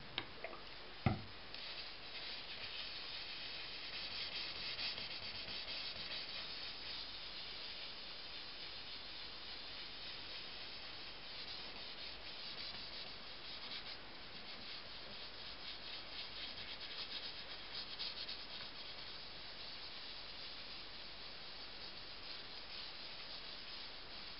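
Paper towel rubbing chopping board oil into a walnut and maple cutting board: a continuous swishing hiss that swells and fades with the strokes. A few light knocks in the first second or so.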